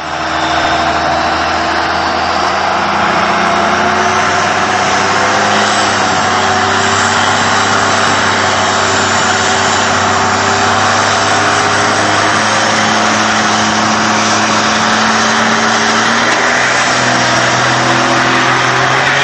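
Turbodiesel engine of a 2001 Dodge Ram 2500, a 5.9-litre Cummins inline-six, running steadily under a trailer-tow load. Its pitch steps up near the end as the truck launches, pouring black smoke.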